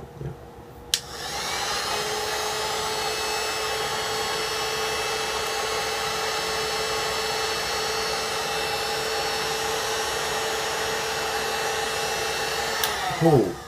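Handheld electric heat gun on its low speed-one setting: switched on with a click about a second in, its fan spinning up and then blowing steadily with a whine, switched off with a click near the end as the fan winds down.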